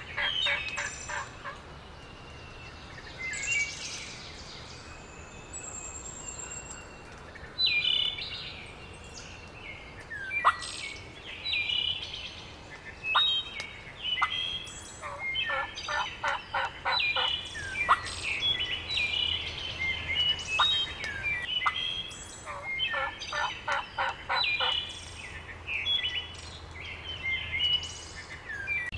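Wild turkeys gobbling several times, rapid rattling runs of notes, among songbirds singing a dawn chorus.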